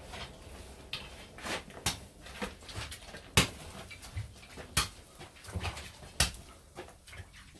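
A series of sharp cracks: four stronger ones about a second and a half apart, with fainter ticks between.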